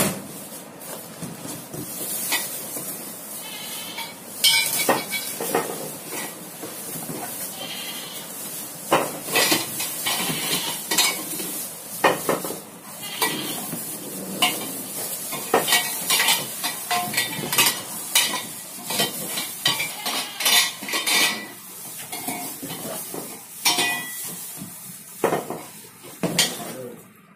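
Unpacking furniture: plastic wrapping and cardboard rustling and crackling, with irregular clinks and knocks from metal frame parts being handled.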